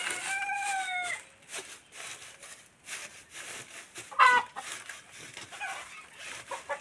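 Chickens calling in a coop: a drawn-out call of about a second at the start, and a short, loud, sharp squawk about four seconds in. Between them, straw rustles and crackles in a nest box.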